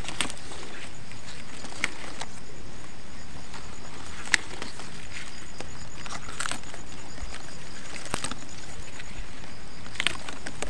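Green onion leaves rustling and snapping as hands part and strip them at the base of the plant, with scattered sharp clicks, the loudest about four seconds in, over a steady hiss.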